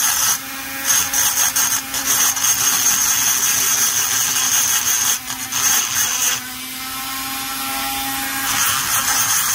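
Hand-held rotary tool grinding the aluminium intake port of an Echo CS-670 chainsaw cylinder: a high motor whine over a rasping grind that rises and falls as the bit bites and eases off. The whine breaks off briefly a few times and drops away for a couple of seconds past the middle.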